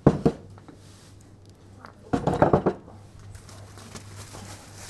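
Plastic shopping bag rustling and crinkling as groceries are put into it, in two short bursts: a brief one at the very start and a longer one about two seconds in.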